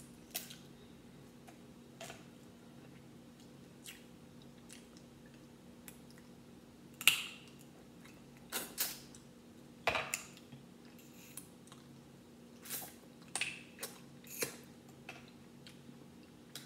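Crab leg shells being cracked and pulled apart by hand, with sucking and smacking as the meat is eaten: a series of scattered sharp cracks and clicks, the loudest about seven and ten seconds in. A faint steady hum runs underneath.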